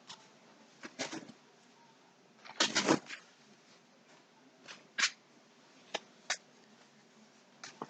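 Scattered short rustles and taps of yarn skeins and their packaging being handled, with the loudest burst about two and a half seconds in and smaller ones every second or so after.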